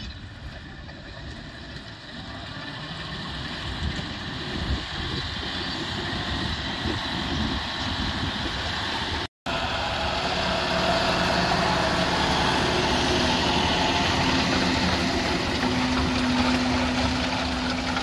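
John Deere 6215R tractor's six-cylinder diesel engine running steadily under load as it pulls a Kverneland reversible plough through stubble. It grows louder as the tractor comes closer, then after a sudden cut about halfway it is heard close up, with a steady engine note.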